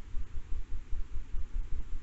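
Low, uneven rumble of wind buffeting a trail camera's microphone, with a faint hiss above it.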